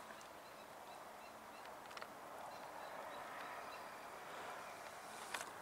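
Faint outdoor ambience with a distant bird calling in short, repeated high notes, and a couple of faint clicks.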